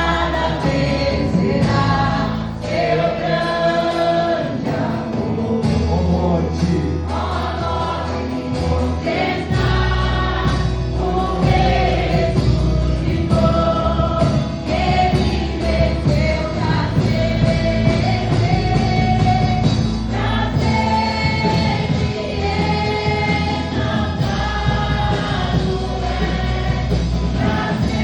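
A worship band playing gospel music with a group of singers, sustained bass notes changing every few seconds under the voices.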